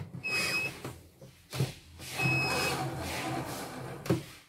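Portable CNY embroidery machine beeping twice with its embroidery unit's motors whirring, as the hoop carriage moves under power, with a couple of sharp clicks. The carriage keeps running off to one side, the machine's fault.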